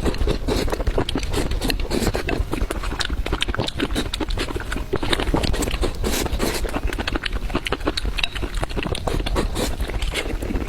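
Close-miked eating: rapid, continuous chewing with wet smacking and clicking mouth sounds, many per second.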